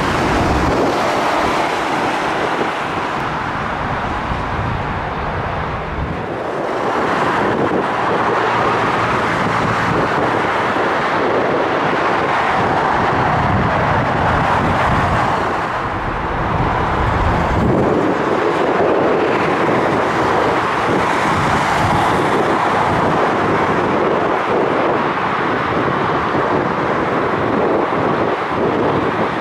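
Gusty wind buffeting the microphone, swelling in low rumbles a couple of times, over a steady rushing noise of distant jet aircraft.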